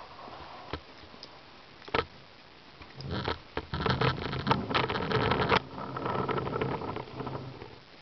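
A thin plastic bag being handled: a couple of single clicks, then a few seconds of dense crinkling and crackling that fades to a softer rustle near the end.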